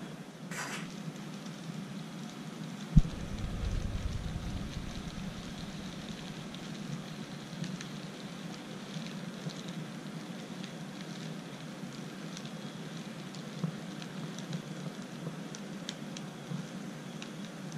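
N scale model trains running on DC track: a steady low hum with faint, irregular light clicking and rattling, typical of small model locomotive motors and wheels over rail joints. A single sharp thump about three seconds in.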